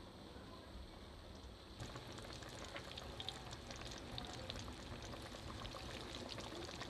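Double-coated chicken pieces deep-frying in hot oil: dense sizzling and crackling starts suddenly about two seconds in, as a piece goes into the oil, and keeps on.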